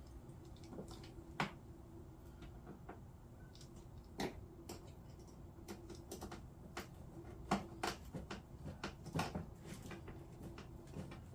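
Screws being driven by hand with a small screwdriver into the plastic body of a 12V kids' ride-on car: scattered, irregular clicks and taps of metal on plastic.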